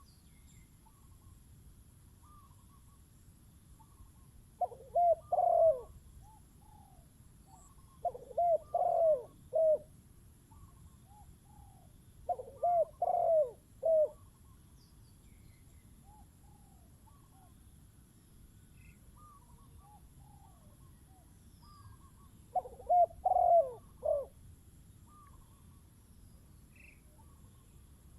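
Spotted dove cooing: four loud phrases of a few coos each, several seconds apart, with fainter short calls in between.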